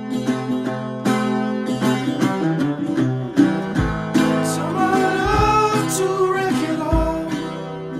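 Music: strummed acoustic guitar, with some singing.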